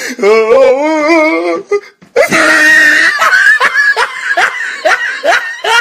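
Sound-effect clip of voices: a wavering, warbling vocal note for about two seconds, then after a short break a loud burst followed by rapid repeated laughter-like cries.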